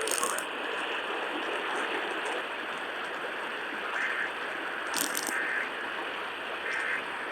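Steady hiss of radio static from a receiver on a quiet broadcast channel, with faint crackle and a couple of brief clicks, one about five seconds in.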